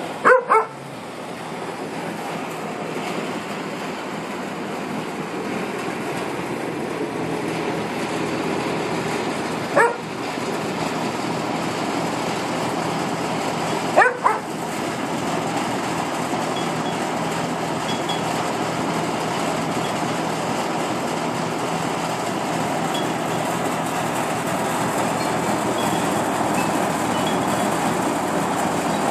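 A dog yelps three times: just after the start, about ten seconds in and about fourteen seconds in, each a short rising cry, over a steady rushing background noise.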